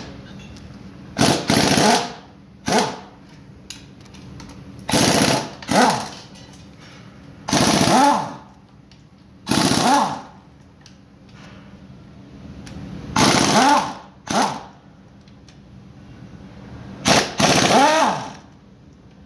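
An air-powered wrench run in about ten short bursts, loosening the bolts of a cover inside a truck gearbox's bell housing; each burst ends with the pitch falling as the tool spins down.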